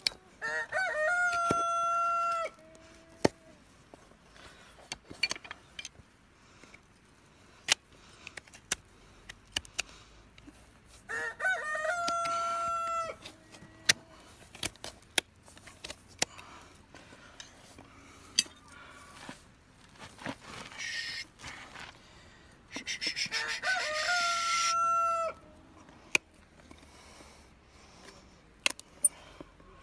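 A rooster crows three times, about ten seconds apart, each crow rising and then held. Between the crows come sharp clicks and snips of a hoof knife and hoof nippers cutting hoof horn.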